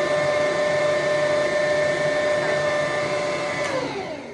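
Electric stand mixer running with its lidded stainless bowl, mixing flour into cookie dough: a steady motor whine that slows, drops in pitch and stops near the end.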